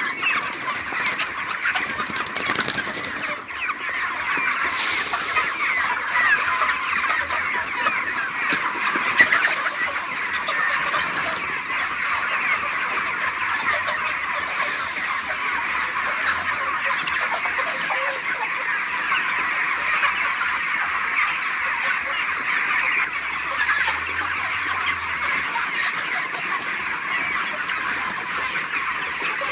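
A flock of desi (country) chickens calling and clucking, many birds at once in a dense, steady chatter.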